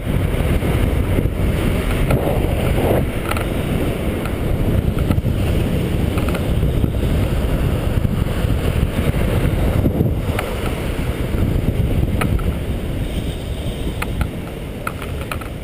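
Inline skate wheels rolling fast on asphalt with heavy wind buffeting the microphone: a loud, steady rumble with a few light clicks. It eases near the end as the skater slows.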